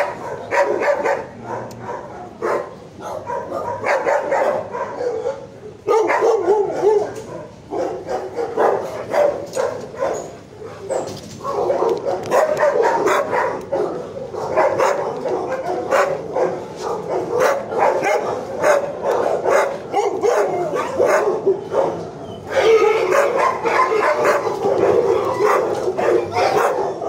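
Shelter dogs barking and yipping almost without pause, with a few short lulls.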